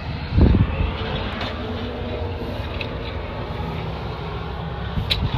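Detroit Diesel Series 60 12.7-litre diesel engine idling steadily in a semi truck, with a single thump about half a second in.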